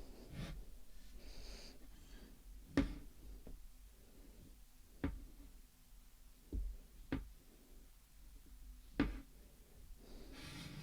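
Faint rubbing of a cleaning wipe on a smartphone, with five sharp knocks from the phone being handled on a hard surface.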